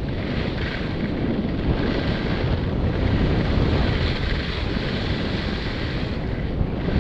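Steady wind buffeting a helmet-mounted camera's microphone during a fast ski descent, mixed with the hiss of skis sliding on groomed snow.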